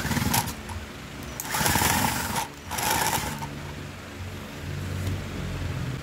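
Cordless drill-driver with a long screwdriver bit whirring in three short bursts as it turns a screw on an amplifier board: a brief one at the start, then two longer ones a little over a second and a half in and around three seconds in.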